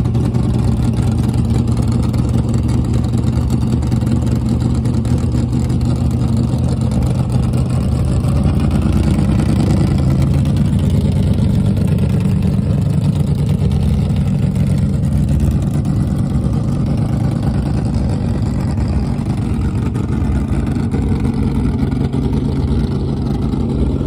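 Fox-body Mustang drag car's engine running steadily, its note rising a little about ten seconds in.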